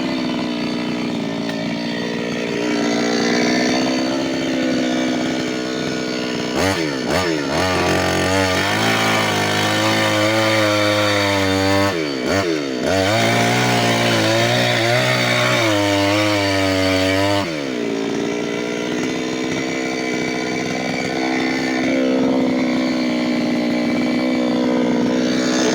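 New West 598X petrol chainsaw running steadily at high revs. For about ten seconds in the middle its note drops lower and heavier, dipping in pitch twice, then returns to the higher steady pitch.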